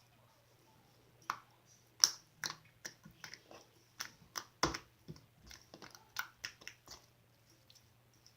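Glossy slime being squeezed and poked by hand, giving a run of irregular sticky clicks and pops from about a second in until near the end.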